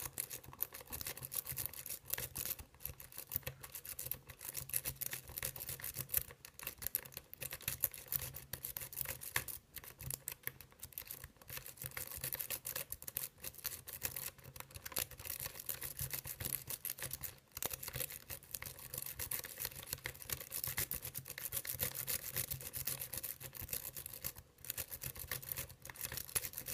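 Double-pick rake scrubbed rapidly in and out of a six-pin Schlosser Technik pin-tumbler cylinder: a continuous fast metallic scratching and clicking as the rake runs over the pins, without the lock opening.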